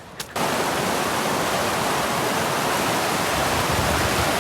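Steady rush of falling water from a waterfall or mountain stream cascade, cutting in abruptly about a third of a second in.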